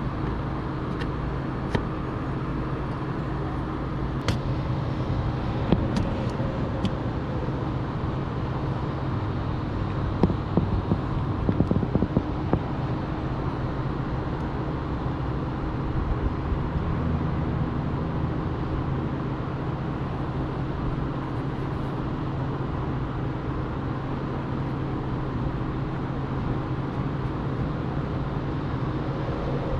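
A steady low mechanical hum, with scattered light clicks and a run of knocks and taps about ten to twelve seconds in.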